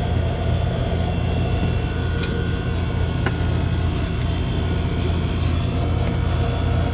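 Steady low mechanical hum of a motor running, with a few faint light clicks.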